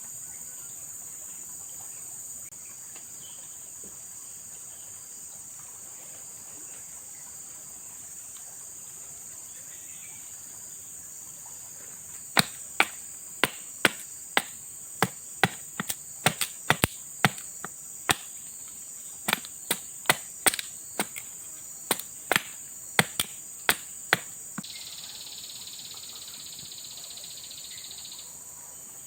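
Steady high-pitched chorus of forest insects. About 12 seconds in, a run of roughly two dozen sharp knocks begins, about two a second at an uneven pace, and stops about 24 seconds in. A second, lower insect buzz joins near the end.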